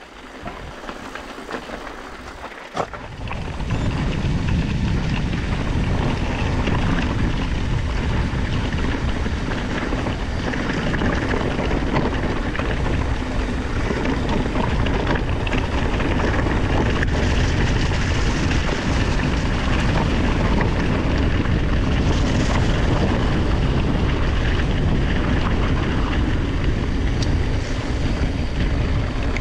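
Mountain bike on a rough trail: wind noise on the helmet camera's microphone, with the tyres and bike rattling over the ground. It gets much louder about three seconds in.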